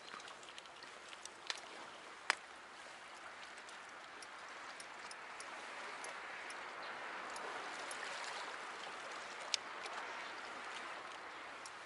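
Seawater washing and gurgling against shore rocks, a steady wash that swells a little through the middle, with a few sharp clicks.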